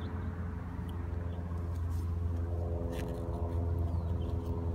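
Steady low mechanical hum, as of an idling engine or motor, with a few faint clicks over it.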